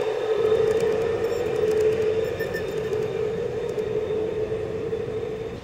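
G-scale model freight train of covered hopper cars rolling past on garden-railroad track, with a steady hum that slowly fades as the last cars go by.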